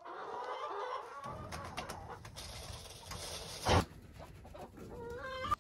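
Hens clucking inside a chicken coop, with one brief, loud flutter about three and a half seconds in from a dove flapping around in the coop.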